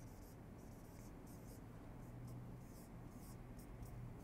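Marker pen writing on a whiteboard: a faint run of short scratchy strokes, irregular and broken by brief gaps, as letters are drawn.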